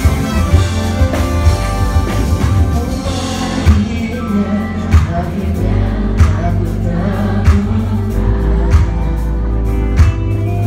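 Pop song played by a band, with singing over a steady beat that has a drum hit about every second and a quarter.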